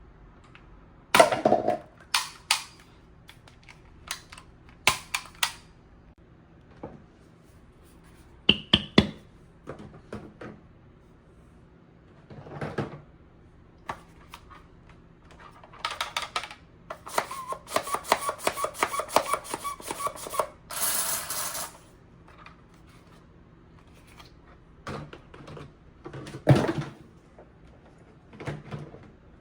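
Scattered sharp clicks and knocks of handling. About halfway through there is a quick run of rattling clicks lasting a few seconds, followed by a short hiss.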